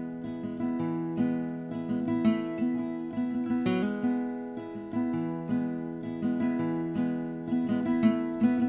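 Background music: an acoustic guitar picking the instrumental intro of a song, notes coming in a steady rhythm over held low notes.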